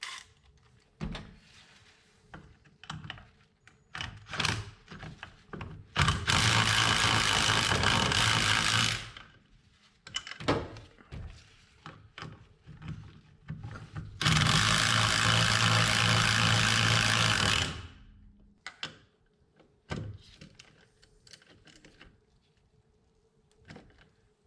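Nuts being run down onto the master cylinder studs at the brake booster: a power tool runs twice, about three seconds each time, between scattered metallic clicks and knocks of sockets and wrenches.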